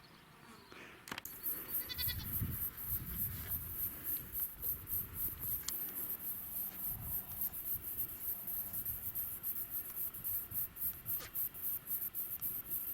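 Feral goats bleating, with a fast, steady high-pitched pulsing behind them.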